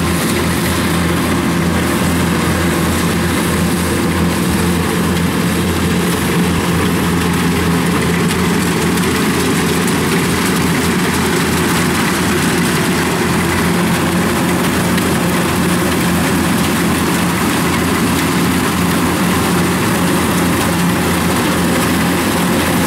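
Kubota rice combine harvester's diesel engine running steadily under load as the machine cuts and threshes rice, a constant drone with no change in pitch.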